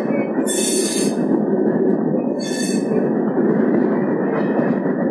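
Express train's passenger coaches running on the rails, heard from an open coach doorway: a dense, steady running rumble, with a high-pitched wheel squeal rising over it twice, about half a second in and again around the middle.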